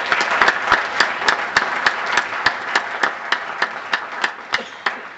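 Audience applause that settles into rhythmic clapping in unison, about three claps a second, fading near the end.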